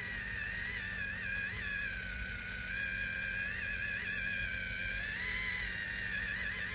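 Cnaier 4-in-1 rechargeable facial cleansing massager running, its small electric motor turning the wet sponge head against soapy skin. It makes a steady high whine that wavers in pitch, sagging in the middle and rising again near the end.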